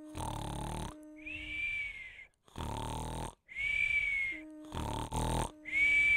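Cartoon-style snoring from a sleeping character: three rounds of a rasping snore on the in-breath, each followed by a high whistle on the out-breath.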